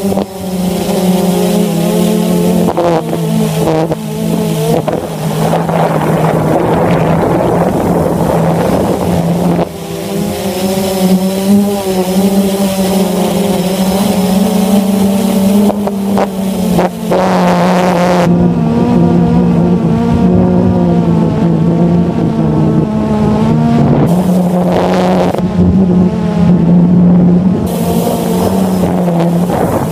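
Blade 350 QX quadcopter's four brushless motors and propellers humming steadily, heard up close from a phone mounted on the drone in flight. The pitch steps up and down slightly now and then as the motors adjust, with wind buffeting the microphone at times.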